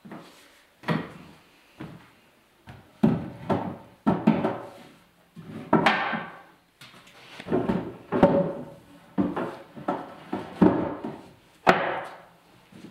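Solid black cherry boards being set down and shifted on a wooden workbench: a dozen or so irregular wooden knocks and thuds, the sharpest near the end.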